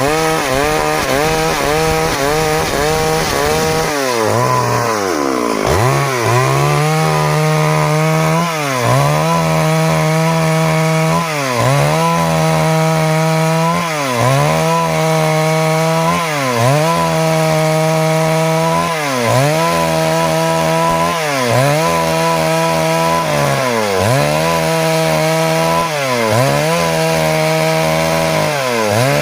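Stihl MS382 two-stroke chainsaw running at high revs while sawing wood lengthwise into boards. Its pitch dips briefly and recovers about every two seconds.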